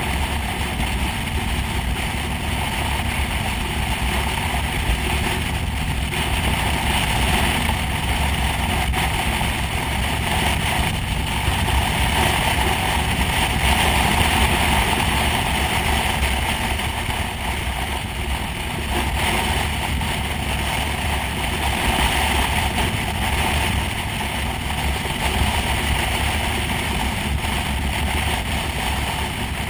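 Steady wind rush with engine and road noise from a motorcycle cruising at a constant speed on a paved road, picked up by a camera mounted on the bike behind its windscreen. A deep rumble runs under the wind, with no change in speed.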